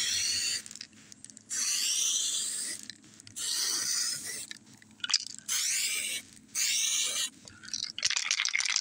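Aerosol can of 2K epoxy primer spraying in short hissing bursts: about seven passes of roughly half a second to a second each, with brief pauses between them.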